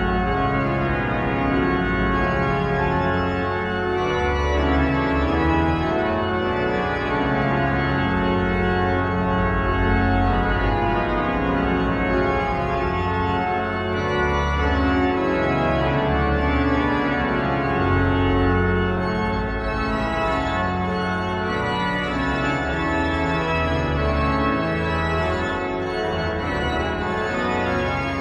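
Organ music: full sustained chords over a low bass line, the harmony changing every second or so at a steady loud level.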